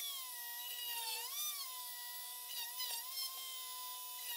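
Small rotary tool running as a mini drill press, a steady high whine whose pitch sags briefly a few times as the drill bit is fed into birch plywood and loads the motor.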